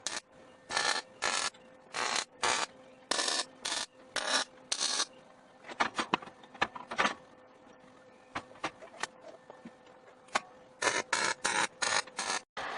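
Hand scraping strokes on steel, back and forth about two a second, then scattered clicks and taps, then quicker strokes near the end.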